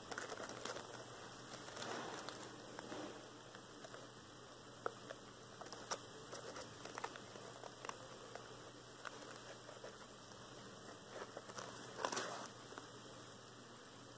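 Faint rustling and small scattered ticks of fingers handling a miniature cloth sail on its thin wooden yard and threading its rigging line over paper, with a louder rustle about twelve seconds in.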